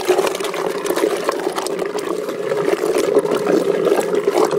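Blender running at a steady speed, churning chunks of fruit in coconut milk, with a steady motor hum under the liquid sloshing.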